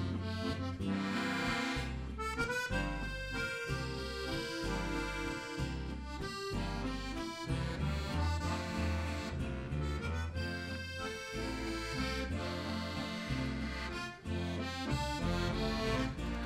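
Solo Rutar diatonic button accordion (Slovenian frajtonarica) playing a lively folk tune, with steady alternating bass notes under a melody in chords.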